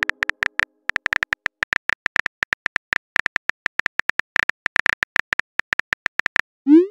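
Rapid keyboard clicks from a phone's on-screen keyboard as a text message is typed, several taps a second at an uneven pace. Near the end comes a short rising swoosh, the sound of the message being sent.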